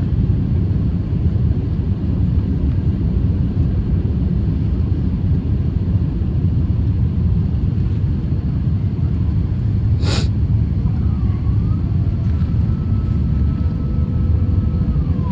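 Steady low rumble of an Airbus A350-1000 airliner's engines and airflow, heard from inside the cabin. A sharp click about ten seconds in, followed by a faint steady whine.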